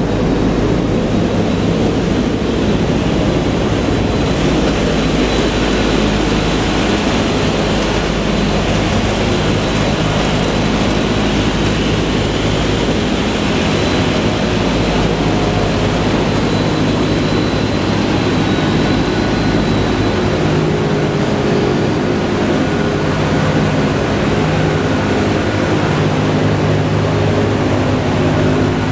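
B-17 Flying Fortress's four Wright R-1820 Cyclone radial engines droning steadily in flight, heard inside the fuselage with rushing air noise over them.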